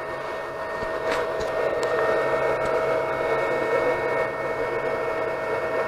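Anycubic Chiron 3D printer running mid-print: a steady whir and whine of its cooling fans and stepper motors, a little louder from about a second in, with two brief higher tones about one and two seconds in.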